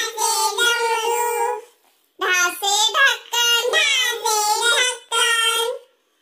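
A child's high voice singing a Hindi alphabet rhyme (varnamala), unaccompanied, in two phrases with a short pause between them about two seconds in.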